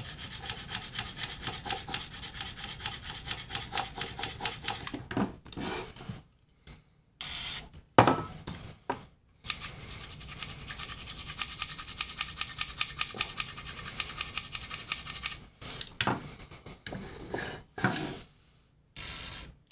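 Small twisted-wire bristle brush scrubbed rapidly back and forth inside a Tech 21 XXL distortion pedal's input/output jack, cleaning its contacts of film that can cause an intermittent connection. Two runs of fast, even scrubbing of about five and six seconds, with a pause between, then a few short scrapes.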